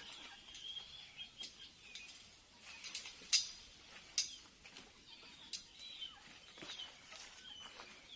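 Faint bird chirps with a few scattered sharp clicks or knocks; the loudest knocks come about three and a half and four seconds in. No cutting machine is running.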